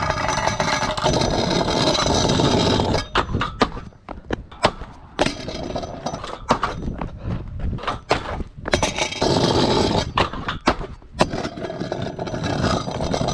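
Scooter wheels cut from hardwood flooring rolling on concrete: a rough rolling rumble for the first few seconds and again from about nine seconds in, broken throughout by many sharp knocks and clacks.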